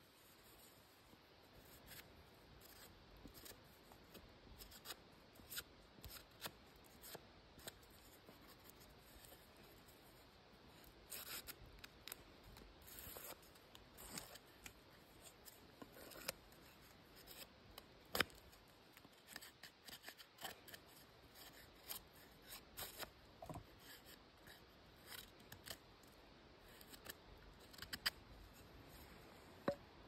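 Knife blade shaving bark off a branch: a run of short, quiet cutting and scraping strokes at an uneven pace, with a few longer strokes about a third of the way in.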